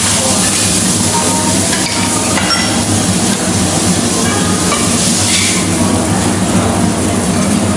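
Food sizzling on a teppanyaki griddle, a steady hiss, while metal spatulas toss and scrape vegetables across the hot plate.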